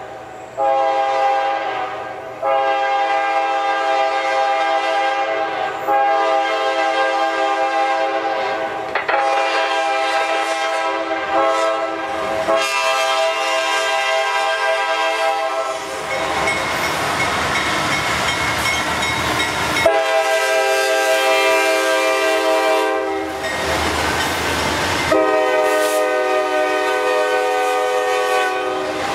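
Diesel freight locomotive's multi-note air horn blowing a string of long blasts as the train approaches, with the rumble of the diesel locomotives swelling between some blasts and passing near the end.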